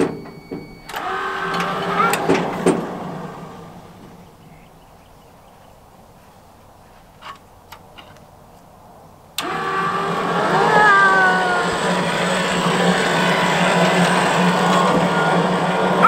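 Wood-Mizer LT15 sawmill's power feed driving the saw head along the bed rails: it runs with a steady hum for about two seconds and dies away, then starts again suddenly about nine seconds in and runs steadily.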